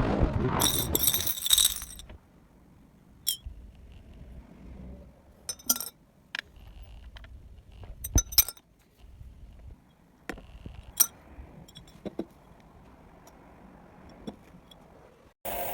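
Small metal parts clinking and tapping against each other and on a hard surface, in scattered separate clicks, a few with a short metallic ring.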